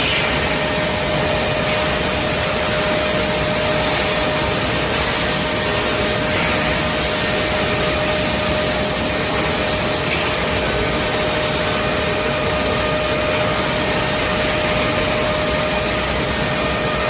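Industrial woodworking machinery, a servo finger joint line, running steadily: a constant machine noise with a steady hum-like tone.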